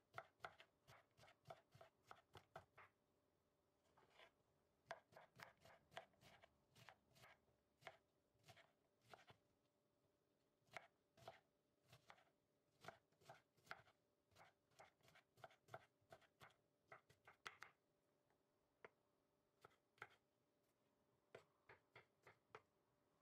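Faint, quick knife chops through fresh broad bean pods onto a wooden cutting board, in runs of rapid strokes with short pauses between them.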